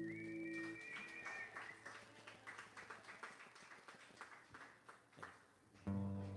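The last chord of an acoustic guitar song rings out while a high whistle sounds, followed by light, scattered applause from a small audience that thins out over several seconds. An acoustic guitar is strummed briefly near the end.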